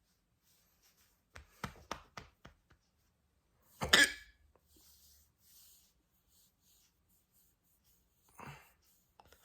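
A person hiccuping: one sharp, loud hiccup about four seconds in, after a quick run of small clicks, and a softer breathy sound near the end.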